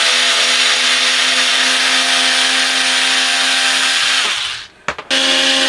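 Small cordless electric screwdriver running steadily as it backs out a long screw. It stops for a moment about four seconds in, with a click, then starts up again.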